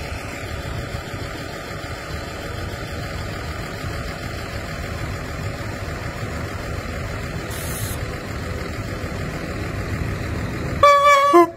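Diesel regional train departing, its engine running steadily and growing a little louder as it draws near. About eleven seconds in, a loud pitched sound with several tones starts.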